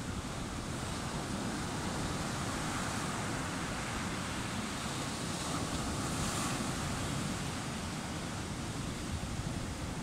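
Ocean waves breaking close by and foaming up a sandy beach: a steady rushing surf that swells through the middle, with a wave crashing about six seconds in.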